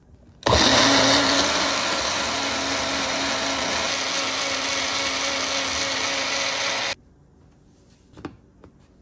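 Magic Bullet Mini personal blender running, blending aloe with honey: it starts suddenly, runs steadily for about six seconds with a steady hum under the motor noise, and cuts off sharply. Two light clicks follow near the end.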